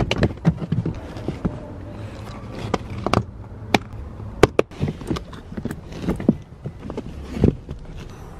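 Long acrylic fingernails tapping and scratching over the ribbed rubber of a car floor mat, a string of sharp irregular taps over a low rumble.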